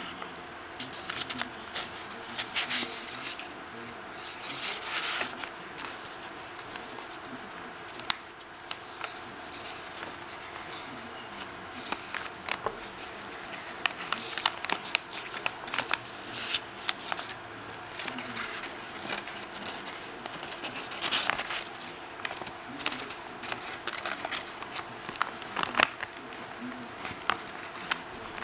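Crisp paper rustling and crinkling as the pages and tucked tags of a handmade paper journal are handled and turned, coming in irregular bursts with occasional sharp ticks.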